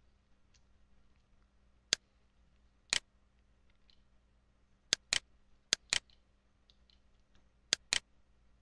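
Computer mouse clicking: about eight sharp clicks, several of them in quick pairs like double-clicks.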